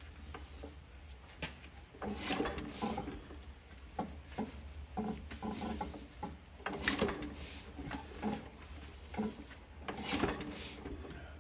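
A 1923 Fairbanks Morse 1½ hp hit-and-miss engine is turned over by hand for a cold compression test. It gives several spells of rubbing and creaking about every two to three seconds as the compression gauge climbs to about 30 psi.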